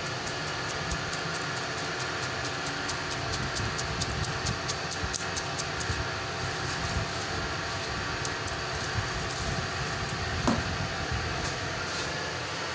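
A knife chopping a watermelon slice into cubes over a steel pot, in quick light clicks, with one louder knock about ten and a half seconds in. Under it runs a steady rumble of street traffic.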